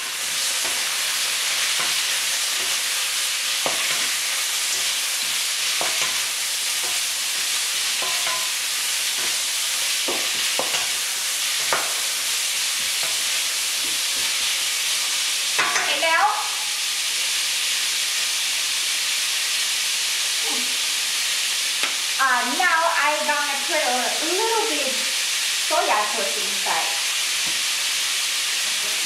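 Sliced daikon radish and cucumber frying in oil in a hot wok with a steady sizzling hiss, while a wooden spatula stirs and knocks against the pan now and then. A few short pitched sounds rise over the sizzle about halfway through and again in the last third.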